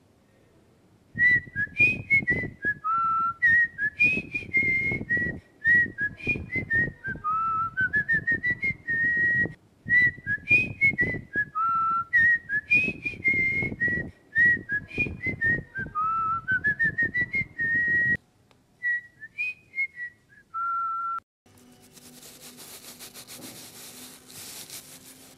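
A melody whistled in short notes and gliding steps, its phrase heard twice over, then a few more notes. Near the end it gives way to a faint steady hiss with a low hum.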